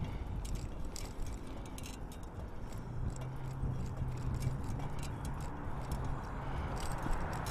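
Outdoor background noise: a steady low rumble with a low steady hum in the middle and scattered light clicks.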